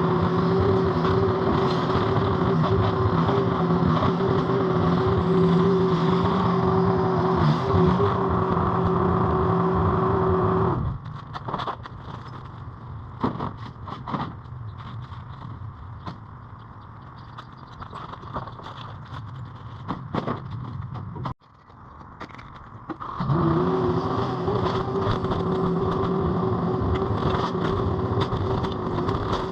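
Mini skid steer engine running steadily with a held whine. About eleven seconds in it drops away to quieter sounds with scattered knocks, then comes back about twelve seconds later.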